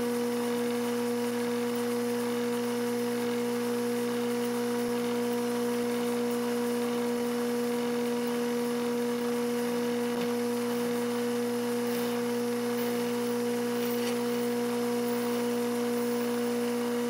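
Milling machine running at a steady speed while a 1/4-inch four-flute high-speed-steel end mill cuts a slot in steel bar. It makes an even, unchanging hum with a strong low drone.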